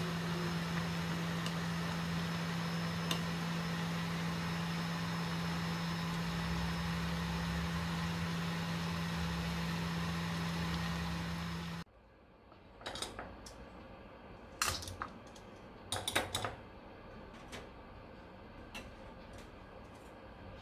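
A steady hum and hiss from the stovetop, where greens are blanching in a pan of boiling water. About twelve seconds in it cuts off suddenly to a quieter background with a few sharp clinks and knocks on a stainless steel bowl.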